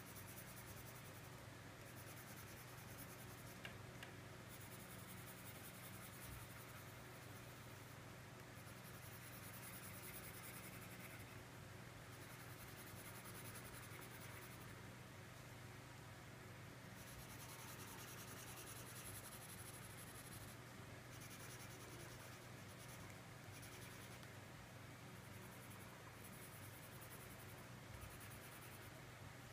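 Faint, steady scratching of a crayon rubbed back and forth on paper while colouring in an area, over a low steady hum.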